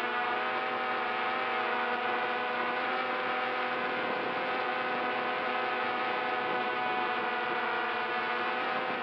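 Quadcopter drone's motors and propellers humming steadily while it hovers, a whine of several pitches that shifts slightly partway through.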